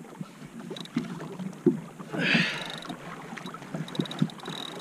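Water lapping and slapping against a kayak hull, with a few light knocks and a short rushing splash about two seconds in.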